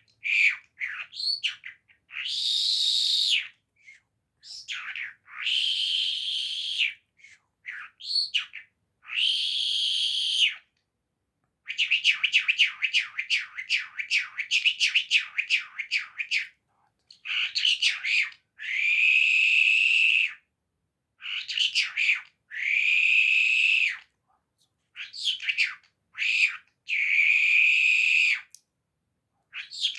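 A songbird singing in separate phrases: harsh, buzzy notes lasting a second or two, broken by short pauses, with a fast run of rapid clicking notes about halfway through.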